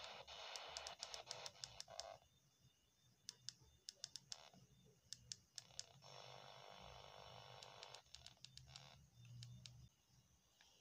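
A feature phone's FM radio being stepped through frequencies: faint, quick clicks as its keys are pressed, with patches of radio static hiss from its speaker that cut in and out between stations.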